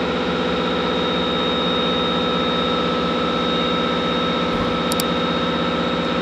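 CNC milling machine running at a steady speed: a constant high spindle whine over a dense mechanical hum, with two faint ticks about five seconds in.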